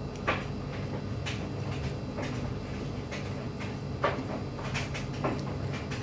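Someone eating: irregular short clicks and smacks of chewing, every second or so, over a steady low hum.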